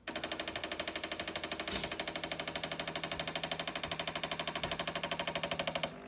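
Bosch Tassimo pod coffee machine starting to brew a coffee T-disc, its pump running with a fast, even pulsing that starts suddenly and stops near the end. A short click about two seconds in.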